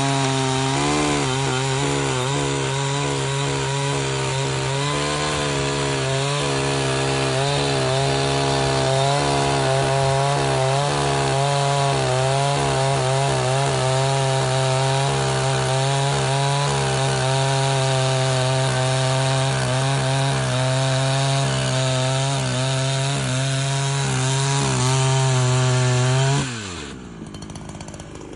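ZimAni 365 two-stroke chainsaw with a full-chisel chain running at full throttle, cutting through a large log; the engine pitch wavers as the chain bites into the wood. About two seconds before the end the throttle is released and the engine note drops away.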